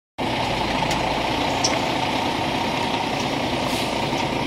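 Engine of the truck hauling a manufactured home section, running steadily; it cuts in abruptly just after the start.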